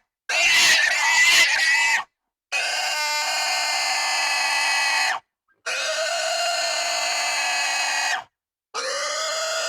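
Pig squealing: four long, high, steady squeals of about two to two and a half seconds each, with short silences between them.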